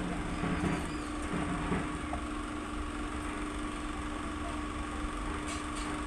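Steady machine hum: a constant low rumble carrying a few unchanging tones.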